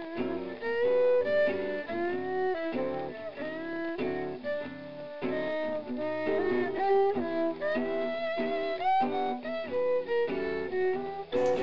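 Instrumental background music: a melody on bowed strings, likely violin, over guitar.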